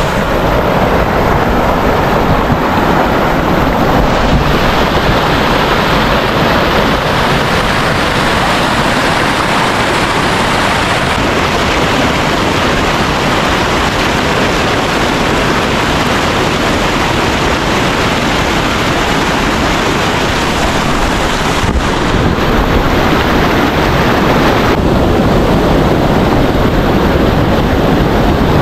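Loud, steady rush of wind buffeting the microphone, mixed with the wash of sea surf along the shore.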